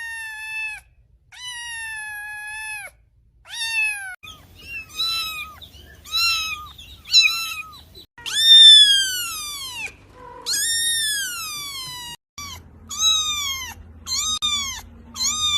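Kitten meowing over and over in high, thin calls. There are several long, drawn-out meows, then a quick run of short ones, about two a second, near the end.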